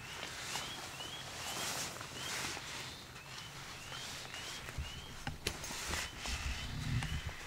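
A bird repeating a short rising chirp about twice a second, over soft footsteps on grass, with a few low thuds in the second half.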